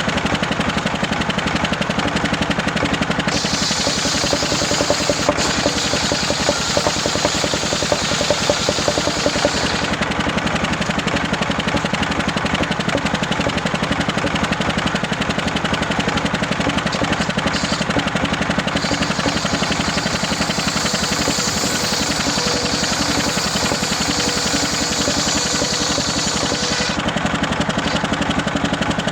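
Homemade circular saw rig with its engine running steadily, the blade cutting through waru wood twice. A high hissing cut runs from about 3 to 10 seconds in and again from about 19 to 27 seconds.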